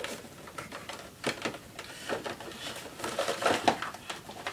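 A white cardboard See's Candies box being handled and opened by hand: irregular scratching, rustling and tearing of the packaging, busiest about three seconds in.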